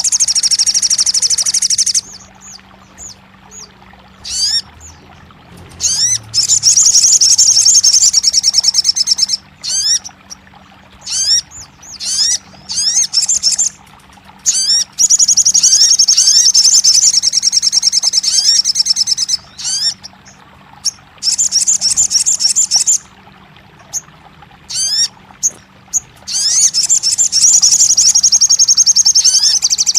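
Sogon bird calls: loud, high, rapid buzzy trills of two to four seconds each, separated by runs of short rising chirps. A faint steady low hum sits beneath.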